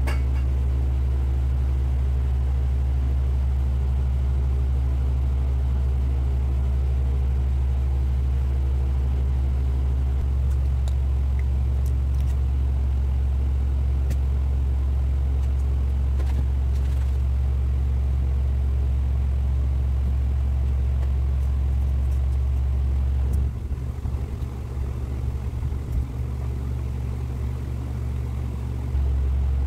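A steady low hum with no other clear sound. It drops a little and turns unsteady for about five seconds near the end.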